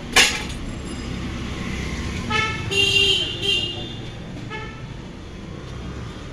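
Vehicle horns honking over a steady low rumble of road traffic: steady-pitched toots come between about two and four seconds in, with a short one a second later. A sharp click just after the start is the loudest sound.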